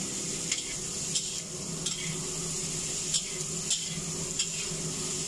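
Chopped bell peppers, tomato and onion sizzling in a hot wok as they are stir-fried, with a steady hiss and a short scrape or tap of the spatula against the wok about every two-thirds of a second.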